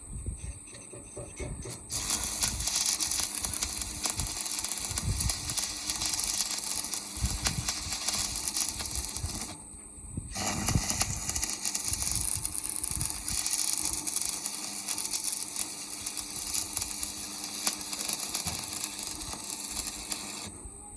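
Electric arc welding: a steady crackling hiss as the arc burns on the plough's steel. It starts about two seconds in, breaks off briefly near the middle, then resumes until just before the end.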